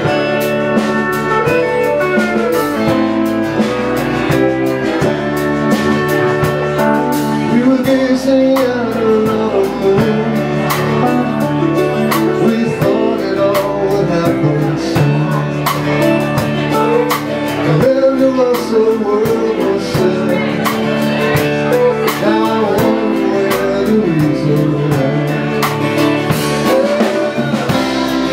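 Live band playing: guitar, keyboard and drum kit keeping a steady beat, with a melodic line that slides up and down in pitch.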